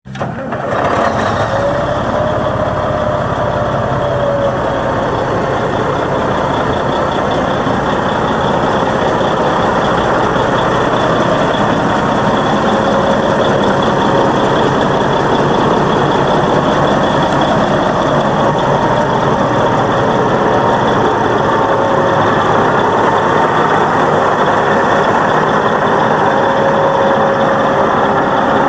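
Caterpillar 627E wheel tractor-scraper's diesel engine idling steadily, with a steady high whine running over the engine noise.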